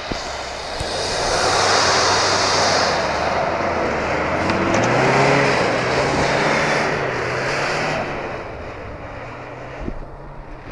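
Four-wheel-drive SUV engine working under load as the vehicle drives past through deep slush and snow ruts, with the tyres churning and spraying. The engine note rises about halfway through as it powers up a snowy slope, then the sound fades as it moves away.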